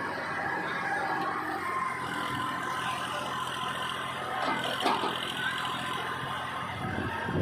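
Diesel engine of a Massey Ferguson 241 backhoe loader running steadily, with a brief shift in pitch about five seconds in.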